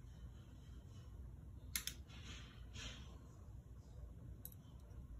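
Small steel parts of a Sig Sauer P365 XL fire control unit handled and worked loose by hand. There are two quick light clicks a little under two seconds in, a soft scraping rustle just after, and another faint click near the end.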